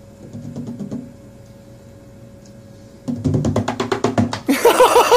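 Music: a fast, clattering drum beat starts about three seconds in, and a warbling, bouncing melody joins it near the end.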